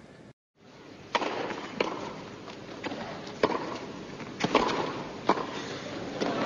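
Tennis rally on an indoor court: about five sharp pops of racquet strikes and ball bounces over the steady noise of the arena crowd, which grows louder toward the end.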